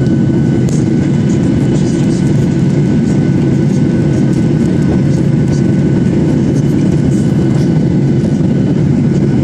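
Steady, loud cabin noise of a Boeing 737 airliner climbing after takeoff: engines and rushing air heard from a window seat over the wing, with faint steady high whines.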